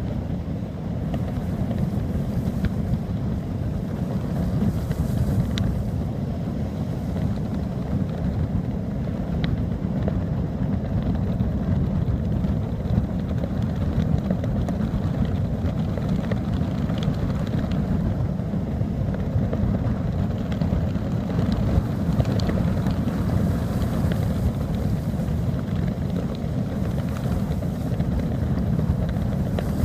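Strong beach wind buffeting the microphone as a steady low rumble, mixed with the flutter of loose pants flapping in the gusts.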